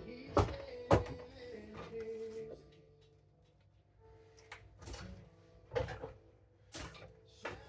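A series of sharp knocks and clunks, about six spread over several seconds, as things are handled and set down on a hard surface, over quiet background music.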